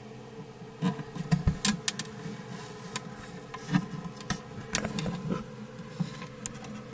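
Plastic 3D printer body being handled, with scattered light clicks and taps at irregular intervals over a steady faint hum.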